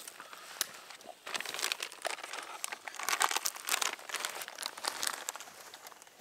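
Packaging crinkling and rustling in irregular bursts of sharp crackles, busiest about three to four seconds in.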